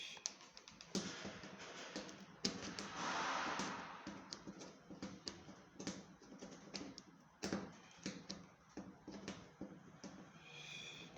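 Irregular light clicks, taps and knocks, like parts and tools being handled, with a short rush of hiss-like noise about three seconds in.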